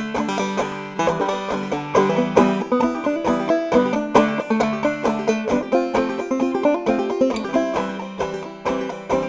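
Five-string banjo played clawhammer style: a quick, even stream of plucked notes with ringing strings underneath.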